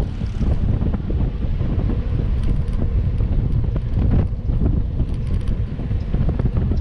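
Strong wind buffeting an action camera's microphone: a loud, gusting low rumble.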